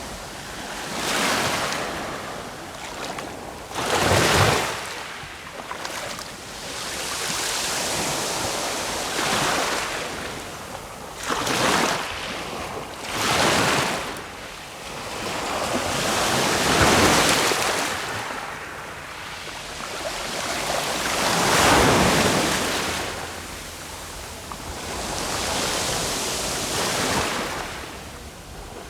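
Sea waves breaking on the shore in a steady series, each one a rush of surf that swells and dies away every few seconds; the strongest breakers come about four seconds in, around the middle, and a little past two-thirds of the way through.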